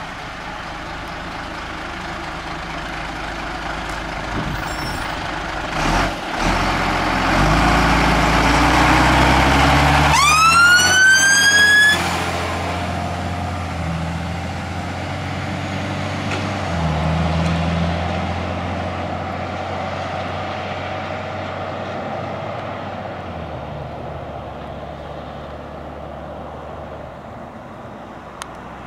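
A Scania water-carrier fire engine's diesel engine drives past, working up through the gears and at its loudest about ten seconds in. At that point a siren gives a single rising wail of about two seconds that cuts off suddenly, and the engine then fades slowly into the distance.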